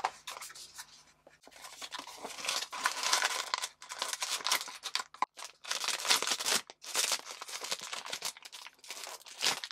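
A cardboard POP MART blind box being opened by hand and its sealed foil bag pulled out: irregular tearing, crinkling and rustling of card and foil.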